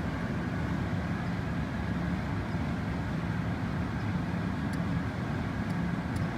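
A steady low rumble of background noise with a faint steady high tone running through it; a few faint clicks near the end.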